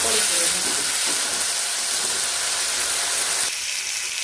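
Onion purée sizzling as it fries in hot oil in a pan, a steady hiss, at the stage where it is just turning golden. The hiss thins out a little about three and a half seconds in.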